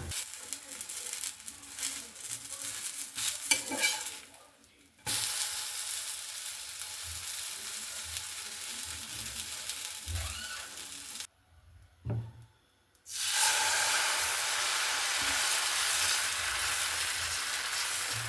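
Food sizzling as it fries in hot oil in a pan, with utensil clicks and scrapes in the first few seconds. The sizzle drops out twice briefly.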